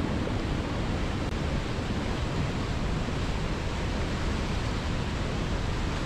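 Whitewater mountain river rushing over rocks below a waterfall: a steady, even rushing noise.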